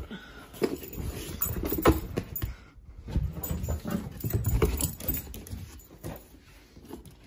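Irregular knocks and scuffles: a dog scrambling about with an empty cardboard beer box, then footsteps going down stairs, with low thumps about four seconds in, and the box being picked up and handled.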